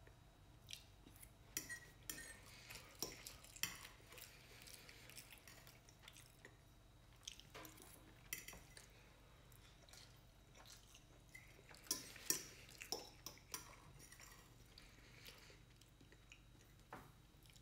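Metal fork clinking and scraping against a plate of fried chicken and chili, in scattered sharp clinks, bunched in the first few seconds and again around twelve seconds in.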